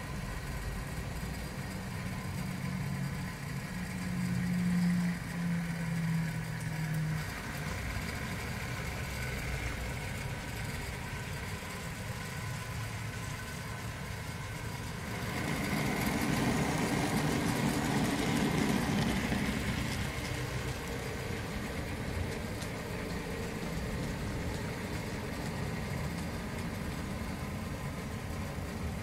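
Model railway trains running: a low engine-like drone that steps in pitch for the first seven seconds, then a louder rushing rumble of a model train passing close, about fifteen to twenty seconds in, settling back to a steady running hum.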